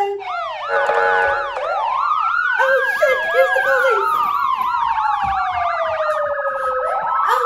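Several emergency-vehicle sirens sounding at once: a quick yelp repeating about twice a second over slow wails that rise and fall.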